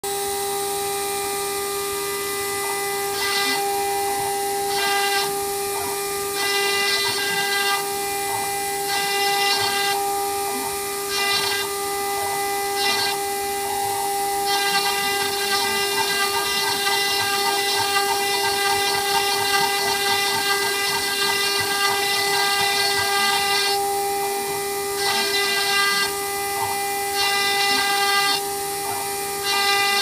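Engraving spindle whining steadily as a pointed V-bit engraves a symbol into a wooden keycap. A hissing cutting sound comes and goes in short stretches as the bit cuts, with one long stretch of about nine seconds near the middle.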